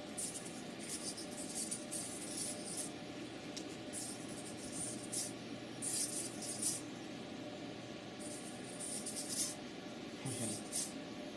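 Small servo motors in a handheld haptic controller whirring in short, high-pitched bursts as its fingertip platform tilts to render a virtual object, over a steady low hum. A brief falling tone sounds about ten seconds in.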